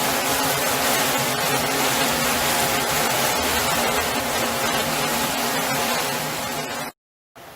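Motorboat engine running steadily under way, under a broad steady hiss; it cuts off suddenly near the end.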